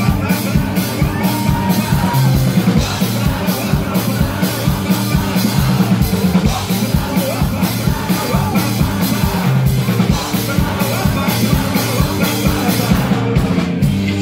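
Live rock band playing loud: a steady drum beat, guitar and singing.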